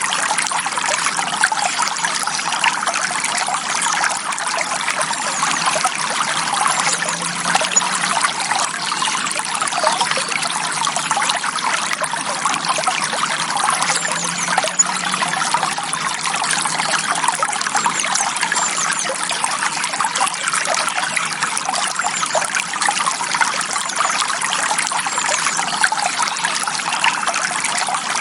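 Shallow forest stream trickling and splashing steadily over rocks, a dense bubbling patter of many small splashes.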